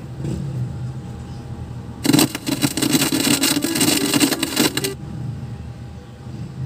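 Sakura AV-3500 amplifier's speaker giving a low steady hum. About two seconds in, a loud burst of test signal comes through as a probe is touched to the equalizer board; it lasts about three seconds and cuts off suddenly. This is signal tracing through the equalizer stage to find where the sound turns scratchy and distorted.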